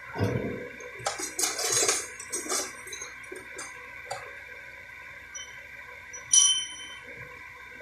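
Metal tools and parts being handled in a body shop: a dull thump at the start, a run of clanks and scraping over the next couple of seconds, then one bright metallic ring about six seconds in that dies away quickly.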